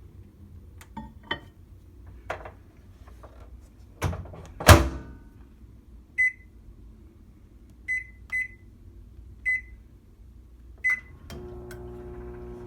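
Microwave oven: clicks and a loud thud of the door shutting, then five short keypad beeps as the cook time is entered. Near the end the oven starts running with a steady hum.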